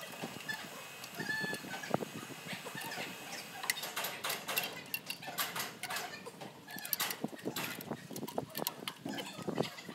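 Scattered clicks and metal knocks of hands and tools working on a truck engine, around the fan belts and pulleys, coming thicker from about four seconds in.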